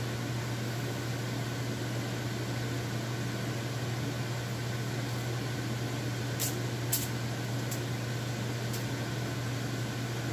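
Kitchen fan running with a steady hum. A few light clicks come over it about two-thirds of the way in.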